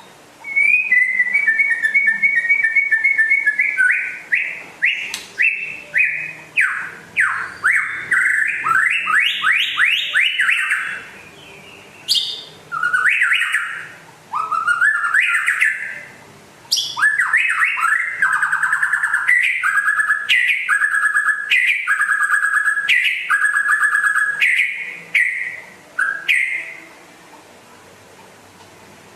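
White-rumped shama (murai batu) singing a long, varied song of rapid repeated notes, trills and rising sweeps, with brief pauses, stopping near the end.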